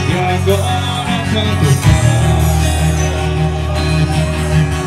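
Live forró band playing loudly through a concert PA system: accordion and band over a heavy, steady bass, with a sung melody line.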